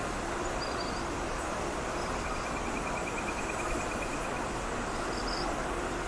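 Steady rush of flowing river water, with a few short high chirps and, from about two to four seconds in, a fast high trill.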